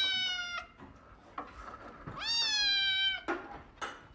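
Grey-and-white kitten meowing: the end of one long, high meow, then another full one about two seconds in, each rising at the start and then sliding slowly down in pitch.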